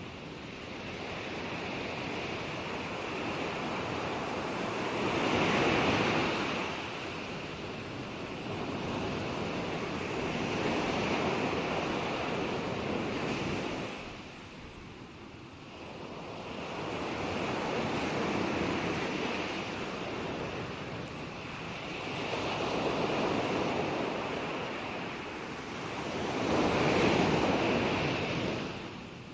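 Ocean waves breaking and washing up on a shore, each surge swelling and fading every few seconds, with a louder wave about six seconds in and another near the end.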